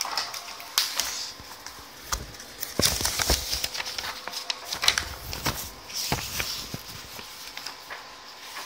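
Paper pages of a thick court case file being turned and handled, rustling with scattered irregular taps and knocks.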